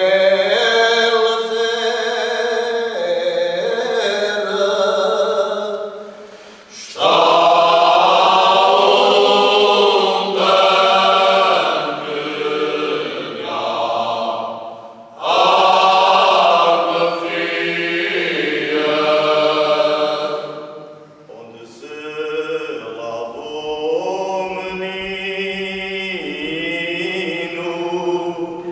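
All-male choir singing cante alentejano a cappella, several voices together in long drawn-out phrases. Short pauses for breath come about every seven seconds between phrases.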